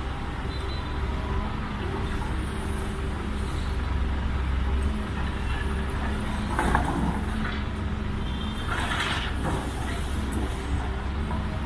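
Tracked excavator's diesel engine running steadily while it works a demolition rubble pile, with two louder rough bursts of noise about six and nine seconds in.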